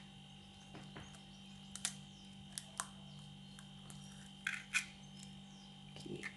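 Scattered faint clicks and taps of an egg being handled into a mixing bowl, about six light ticks in all, over a steady faint hum.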